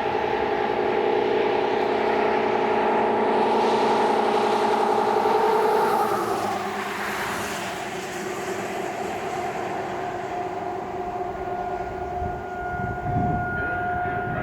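Whelen 3016 electronic outdoor warning siren sounding a steady, loud multi-tone signal. About six seconds in it drops in pitch and winds down, leaving a fainter steady siren tone from farther away. Road traffic rumbles near the end.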